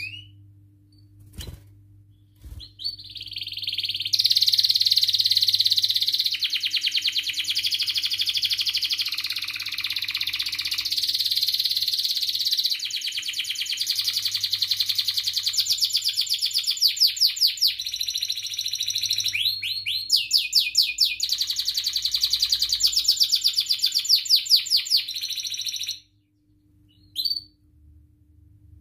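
Domestic canary singing a long unbroken song of rapid rolling trills, switching from one trill to the next every few seconds. It starts a few seconds in, breaks off suddenly near the end, and is followed by two short chirps, over a faint steady hum.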